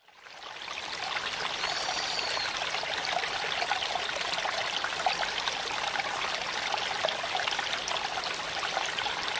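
Steady rush of running water, like a stream, fading in over the first second.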